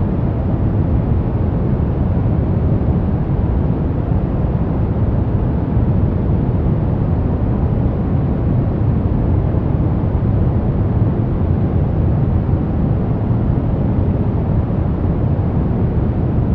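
Steady white-noise track for baby sleep: an unbroken, deep rushing hiss, heaviest in the bass and soft in the treble.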